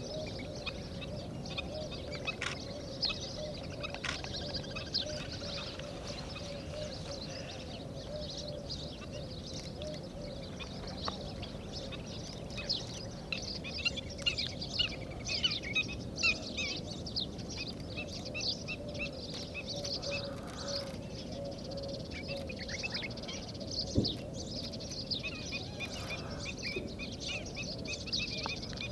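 Outdoor birdsong: many small birds chirping with short, high, quick calls throughout, over a steady, faintly wavering lower tone.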